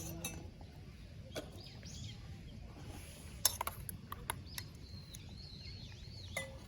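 Small birds chirping in a run of quick rising and falling calls, clearest in the second half, over a low steady outdoor background. A few sharp clicks cut in, the loudest a little past the middle.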